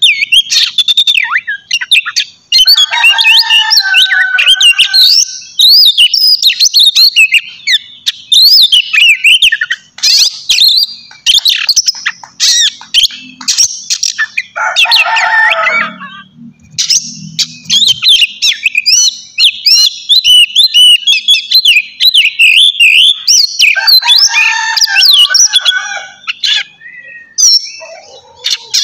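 Oriental magpie-robin (kacer) singing loudly and without pause: a fast, varied run of whistles and chatter, broken by harsher, lower phrases about three seconds in, near the middle and near the end.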